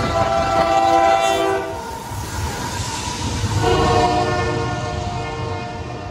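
Freight locomotive's air horn sounding a chord in two long blasts, the first cutting off about a second and a half in and the second starting about two seconds later and fading out. Beneath it, the low rumble and clatter of the double-stack container train rolling past.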